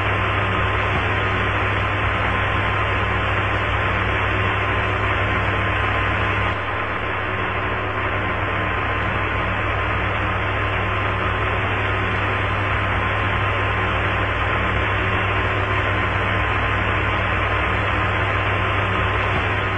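Steady hiss of an open radio channel with a low hum and a faint, thin steady high tone underneath, and no voices. The hiss drops a little about six and a half seconds in.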